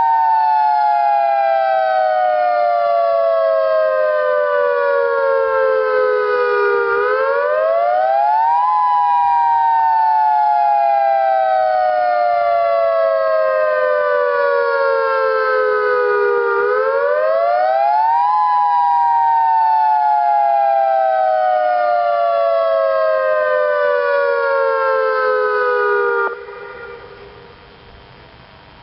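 Federal Signal Modulator dual-tone electronic tornado siren sounding a wail during a test: two close tones rise quickly and fall slowly, repeating about every ten seconds. It cuts off about 26 seconds in, leaving a brief fading echo.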